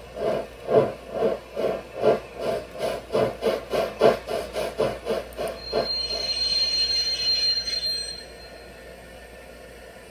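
Gauge 1 live-steam model of a DB BR 01.10 locomotive running on a roller stand: its exhaust chuffs at about two to three beats a second, quickening slightly. The beat stops about six seconds in, and a steady hiss of escaping steam with a thin high tone follows for about two seconds before dying away.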